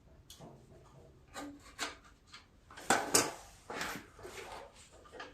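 Scrapes, rubs and clicks of a metal starter-generator and its bolts being handled and worked into place on a small engine, with two sharper knocks close together about three seconds in.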